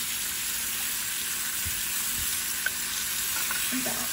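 Pork steak sizzling steadily in hot fat in a frying pan, its second side now frying.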